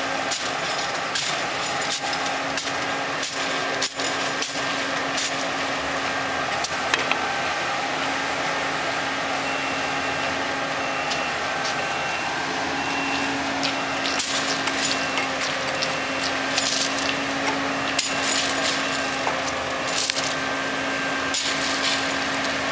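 Thermite rail weld hissing steadily with frequent sharp crackles, over a faint steady hum.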